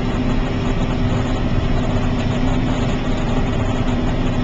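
John Deere 9500 combine running at a steady pace while harvesting corn: a constant loud machine drone with a steady hum, with no change in speed or load.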